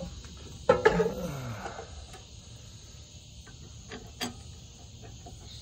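Hand-work on tractor hydraulic hose fittings: a loud metal clank with a short falling squeal about a second in, then a few lighter clicks, as the hoses are connected.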